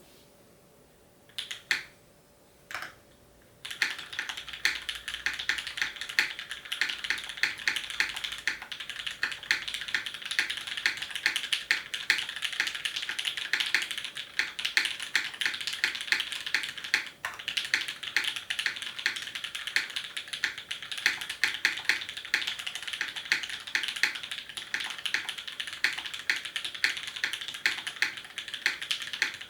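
Typing on a custom mechanical keyboard with lubed Cherry MX Red linear switches in an aluminium plate, GMK keycaps and a DNWorks SBL case. Two single keystrokes come about one and a half and three seconds in, then fast, continuous typing from about four seconds in.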